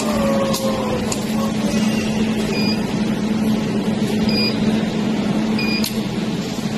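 Jewelry laser welding machine running with a steady hum, broken by a few sharp clicks and three short high-pitched beeps.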